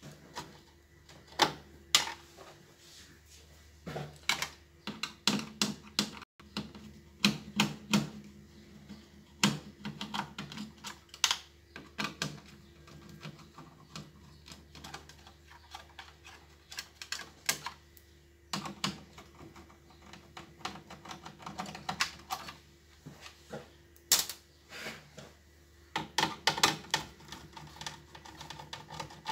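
Irregular clicks and light knocks of hands and tools working on an LCD TV's power-supply board and metal chassis, as the board is being taken out.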